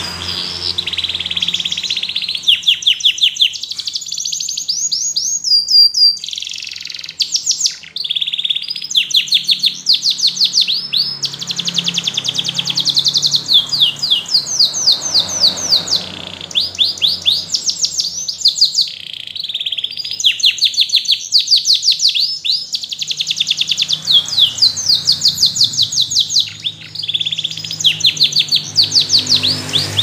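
Canary singing a long song of rapid trills: fast runs of repeated notes sweeping up and down in pitch, in phrases broken by short pauses.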